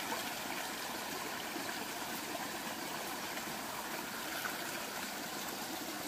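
Steady rush of flowing stream water, an even wash of noise without breaks.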